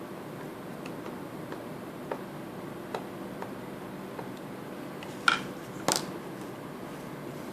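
Small clicks and taps of laptop parts and tools being handled during reassembly, over a steady low hiss; two sharper, louder clicks come about five and six seconds in.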